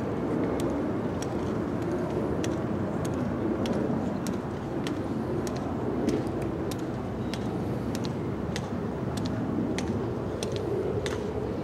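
Steady outdoor background rumble with many scattered, irregular sharp clicks of footsteps on stone steps as people walk up and down.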